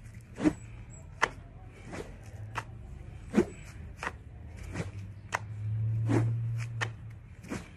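Short braided rope swung around the body in a rhythmic twisting swing, with a short sharp swish or slap at each turn, about three every two seconds. A low hum underneath swells and fades about six seconds in.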